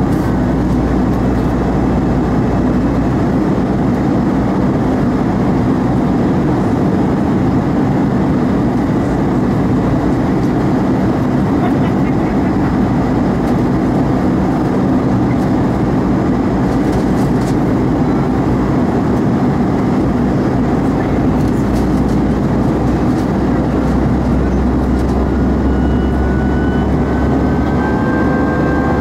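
Airbus A320 cabin noise in flight, heard from a window seat over the wing: the steady rumble of the jet engine and rushing air, with a low hum beneath. A faint thin whine of steady tones comes in near the end.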